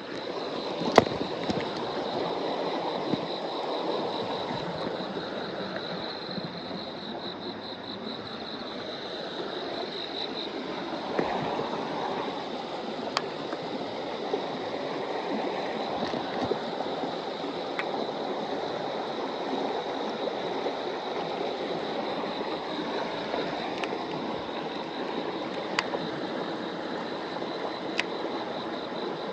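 River water flowing, a steady rushing wash, with a thin high steady tone above it and a few sharp ticks now and then.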